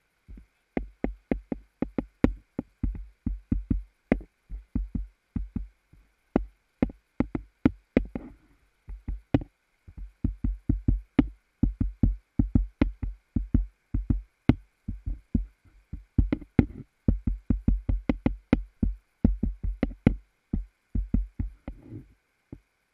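A long run of sharp knocks with a low thud in each, about two to three a second, broken by a few short pauses, over a faint steady high buzz.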